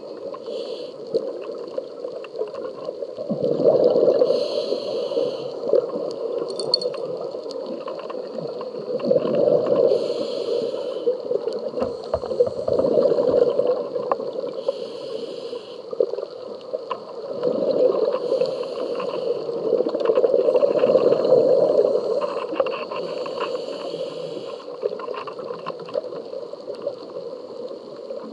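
Scuba regulator breathing heard underwater: a hissing inhalation and then a bubbling, gurgling exhalation, repeated every few seconds.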